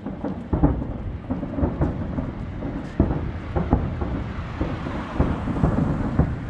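Aerial fireworks bursting in the distance: a continuous run of deep booms and rumbling, with sharp reports about half a second in and at three seconds.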